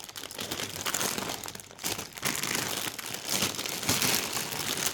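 Plastic Lego parts bags crinkling as they are handled and sorted.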